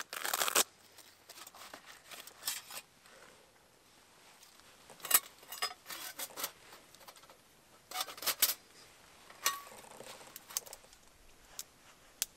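Bushcraft Essentials Bushbox, a folding steel pocket stove, being taken from its fabric pouch and set up: a rustling burst as the pouch is opened, then a series of short metal clinks and clicks as the panels are unfolded and locked into a box, with dry leaves rustling under the hands.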